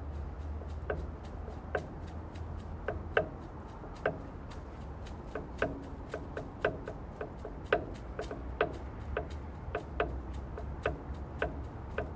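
Two stones clicked together by hand, giving sharp dry clicks at an uneven pace of about two a second, over a low steady rumble.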